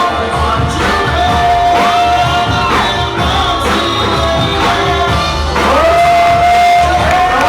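Loud dance-battle music: a singing voice holds long notes that slide up into place, over a heavy bass beat, with shouts from the crowd.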